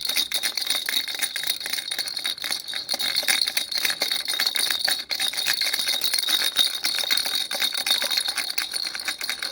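An elephant-shaped baby rattle shaken steadily, a fast jingling clatter of its beads, with a brief break about five seconds in.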